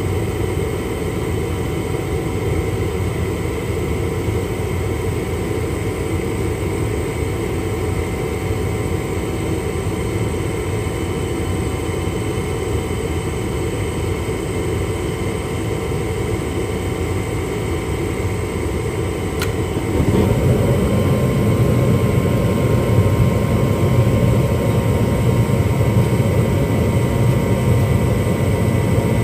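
Gas furnace running with its blower moving air, a steady rushing hum. About two-thirds in there is a sharp click and the sound then grows louder and deeper, with the furnace staying on after its flame sensor has been cleaned.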